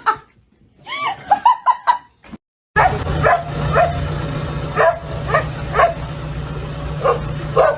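A dog barking in short, high yaps, repeating every half second or so, over a steady low hum. Before them there is a brief run of high calls and a moment of silence.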